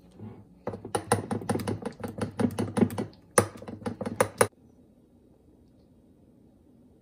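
A spoon beating baking soda into thick lentil batter, clicking rapidly against the side of the bowl at several strokes a second: a run of about two and a half seconds, a short pause, then about a second more.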